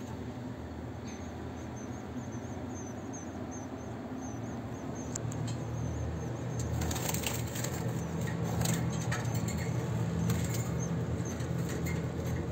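Caged European goldfinches fluttering: wing flaps and rustling clicks that grow busier and louder in the second half, with faint high twittering in the first few seconds over a steady low hum.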